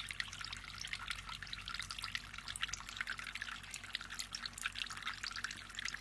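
Water trickling and dripping steadily out of a homemade plastic-bottle fountain into a plastic basin, kept flowing by a small motor pump. It makes a continuous fine patter, with a faint steady low hum underneath.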